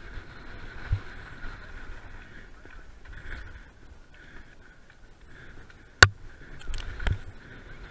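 Mountain bike rattling down a rough dirt trail, with a steady hiss and knocks from the bike as it hits bumps. The loudest is one sharp crack about six seconds in, followed by a cluster of knocks about a second later.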